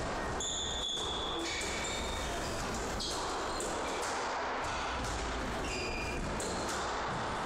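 Squash rally: the ball struck by rackets and smacking off the walls, with several short high squeaks of shoes on the wooden court floor, over a steady hiss.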